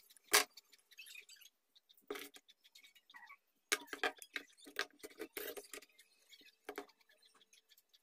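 Small hand-tool clicks and knocks on a workbench: a sharp snip of wire cutters through a wire about a third of a second in, the loudest sound, then a series of light clicks and taps as the cutters are put down and the solder spool and soldering iron are handled.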